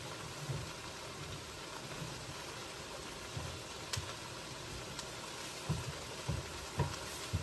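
Food sizzling steadily in a frying pan, with a few soft, low knocks scattered through.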